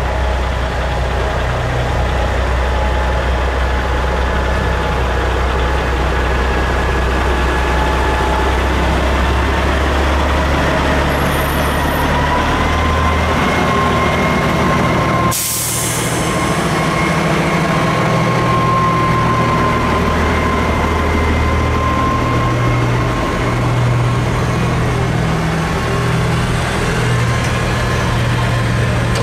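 Diesel engines of big-rig semi tractors, among them a long-hood Peterbilt, idling and running at low speed as they manoeuvre. The sound is steady and loud, with a short sudden break about halfway through.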